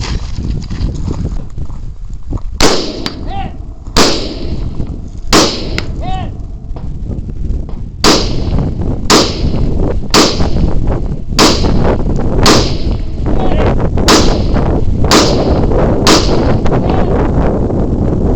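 Rifle shots fired at long-range targets: three shots about 1.3 seconds apart, a pause, then eight more at roughly one a second. A short ringing tone follows the first and third shots.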